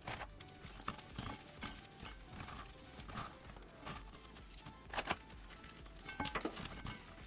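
Dry biscuits being snapped and crumbled by hand into a bowl of walnuts: irregular crisp cracks and crumbly crackling, with pieces dropping onto the heap.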